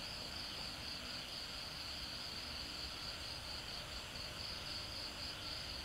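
Insects chirring steadily at a high pitch, with a faint low hiss under it.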